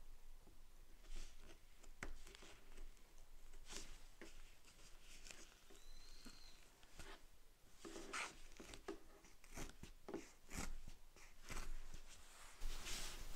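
Fine metal pick scratching and clicking against leather as it digs old stitching thread and dirt out of the stitch holes along a leather wallet's edge. A run of small, irregular scratches, busier in the second half.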